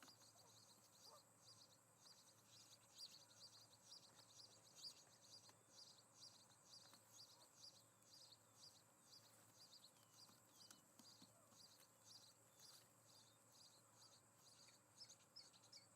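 Faint chirping from small animals: short, high chirps repeating evenly, about three a second, over a faint steady hiss.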